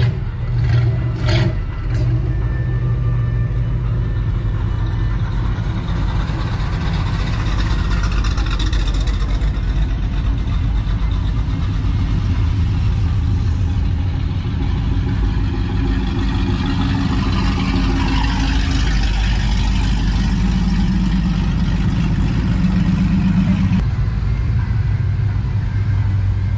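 A car engine runs with a steady low rumble, with a few sharp clicks in the first two seconds. The sound swells twice, as with revving or a vehicle moving past, and one engine note cuts off near the end.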